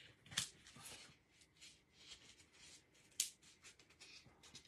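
Faint rubbing and scraping as a piece of styrofoam is pressed into a stiff fake taco shell and the shell is handled, with two sharp clicks, one about half a second in and one about three seconds in.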